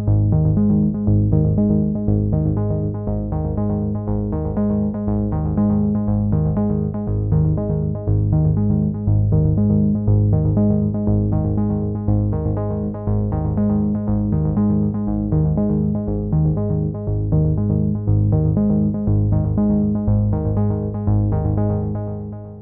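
Background music: synthesizer-led electronic track with a steady repeating rhythm, fading out near the end.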